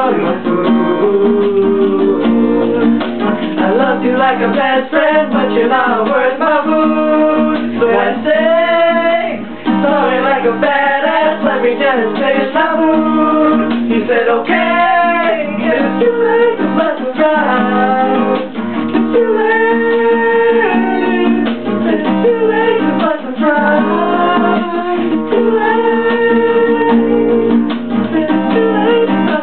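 Acoustic guitar strummed steadily while young men sing along over it.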